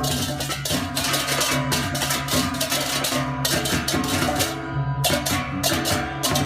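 Percussion-heavy music: fast, dense strikes over steady pitched metallic tones and a low held note.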